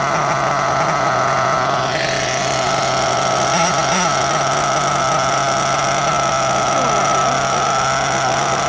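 Hong Nor nitro engine in a 1/8-scale Tamiya TRF801X buggy, just started with a handheld electric roller starter: the starter spins against it for about the first two seconds, then the engine idles steadily on its own.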